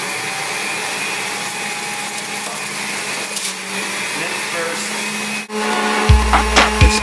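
Electric juicer motor running steadily with a low hum as cucumber and other produce are fed down the chute and pressed through. It cuts off suddenly about five and a half seconds in, giving way to music with a heavy bass beat.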